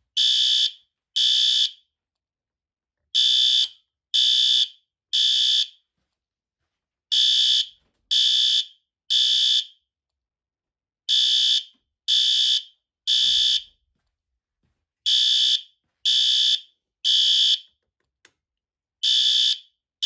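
System Sensor SpectrAlert Advance P2R fire alarm horn sounding in the temporal-3 pattern: three short, high-pitched blasts, a pause, then repeating about every four seconds. This is the standard fire evacuation signal.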